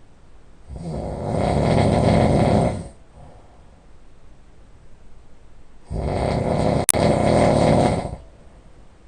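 A person snoring loudly: two long, rasping snores of about two seconds each, with a quiet breath between them. A brief sharp click cuts into the middle of the second snore.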